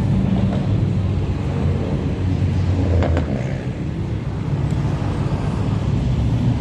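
Cars and pickup trucks driving slowly past one after another, engines running with a steady low hum over tyre noise on the pavement.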